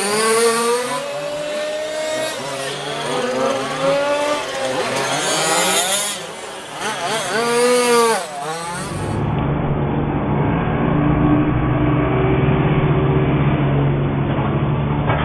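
Small two-stroke petrol engines of 1:5 scale RC rally cars revving up and falling off again and again, the pitch rising and dropping as they are driven through a cone course. About nine seconds in the sound turns duller and steadier, a low engine drone.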